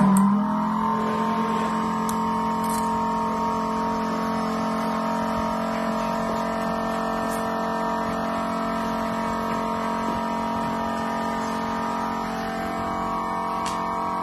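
Electric motor of an LCD screen separator machine switching on right at the start and running with a steady hum of several fixed tones.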